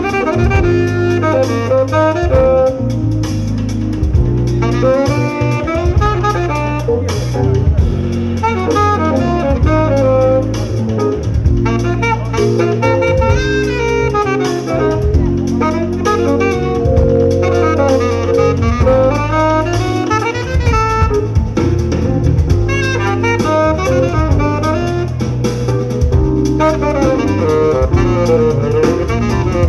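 Live jazz-fusion quartet playing: saxophone over electric bass guitar, keyboard and drum kit, with a melody moving in quick runs.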